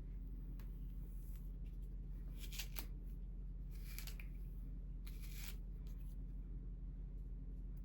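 A few short rustling swishes of hair being handled and brushed while a wig's part is set, over a steady low hum.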